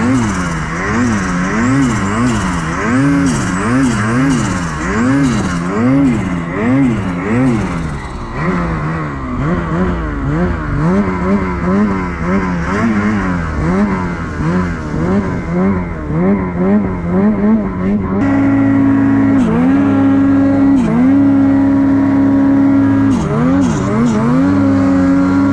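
Ski-Doo Gen 5 Turbo R snowmobile's turbocharged two-stroke engine revving up and down about once a second, then held at a steadier, higher pitch from about two-thirds of the way through, with a few brief dips as the throttle is eased.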